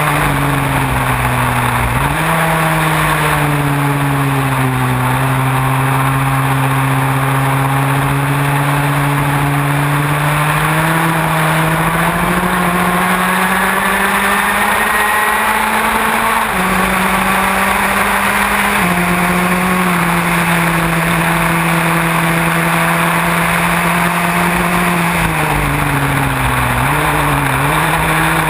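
Formula Ford's four-cylinder engine running hard, heard from on board the car. Its pitch jumps up early, climbs slowly for long stretches and drops in steps at two gear changes in the middle. Near the end it falls and wavers as the car brakes and shifts down, over a steady hiss of wind and water spray.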